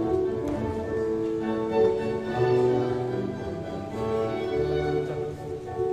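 Instrumental background music with long held chords that change every second or so.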